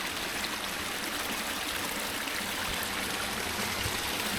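Small waterfall on a narrow spring run, water splashing and rushing steadily over limestone.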